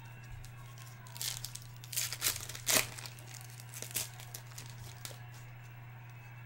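A foil trading-card pack (2015 Panini Prizm baseball) being torn open and crinkled by hand: a string of crackling rips between about one and four seconds in, over a steady low hum.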